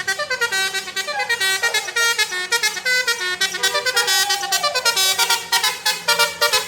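Bus telolet horn playing a fast tune of short notes stepping up and down, starting suddenly and loud, over a faint steady low hum.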